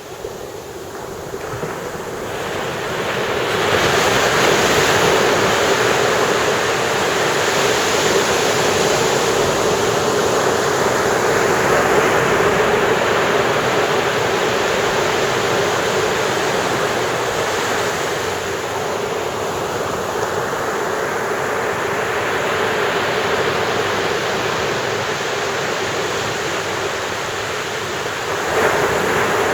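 Ocean surf breaking on a beach: a wave builds and crashes a few seconds in and its wash runs on, and another wave breaks suddenly near the end.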